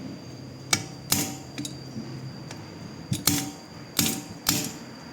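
A series of sharp, irregular metal knocks and clinks, about eight, as metal tools strike or are set down on metal. Several ring briefly.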